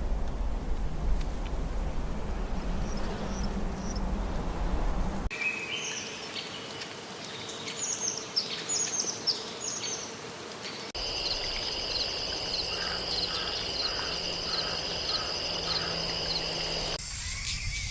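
Rainforest animal sounds in three cut-together stretches: first a noisy rumbling stretch with faint chirps, then a run of short high calls that fall in pitch, then steady high-pitched insect trilling with a repeated lower call under it.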